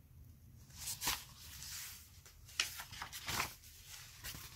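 Paper rustling in a few short swishes as the pages of a hardcover picture book are handled and turned.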